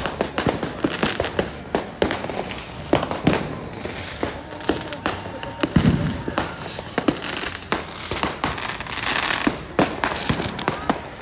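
Many firecrackers going off in quick, irregular succession, sharp cracks overlapping one another, with a heavier, deeper bang about six seconds in.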